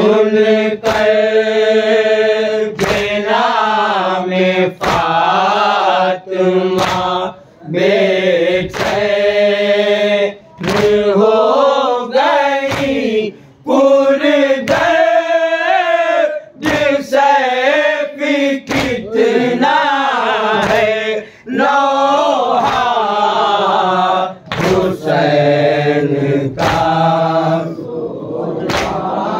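A group of men chanting a noha (Shia mourning lament) in unison, led by one reciter, with sharp chest-beating (matam) slaps keeping time about once a second.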